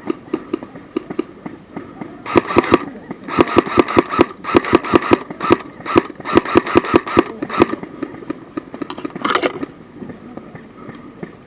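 Footsteps of an airsoft player on rough ground, walking at an even pace and then breaking into a run about two seconds in, with rustling through the brush. The run stops about two seconds before the end, and the footsteps drop back to a walk.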